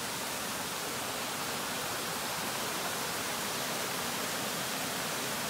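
Flat Creek Falls, a mountain creek cascading over mossy boulders, with water rushing steadily.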